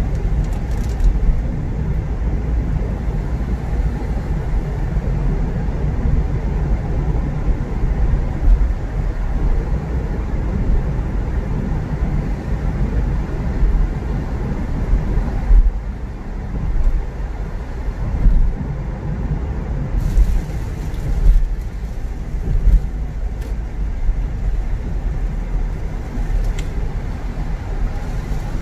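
Car driving in traffic: a steady low rumble of road and engine noise, with uneven louder swells.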